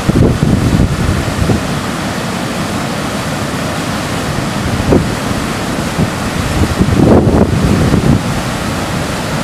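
Waterfall running high and fast: a steady, loud rush of falling water. Wind buffets the microphone in gusts during the first second and again about seven seconds in.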